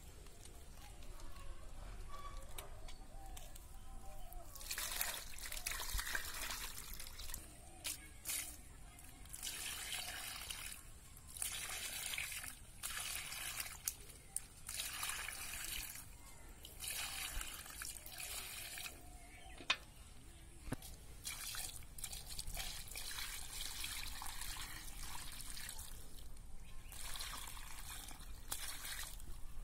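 Muddy water trickling and sloshing in repeated spells of a few seconds as caught catfish are sieved and rinsed in plastic containers, with water poured from a bucket into a basket of fish near the end.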